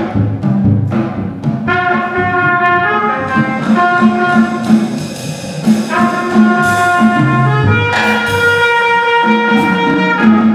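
Free-improvised jazz: a trumpet comes in about two seconds in with long held notes that change pitch every second or so, over a drum kit played in loose, irregular strokes.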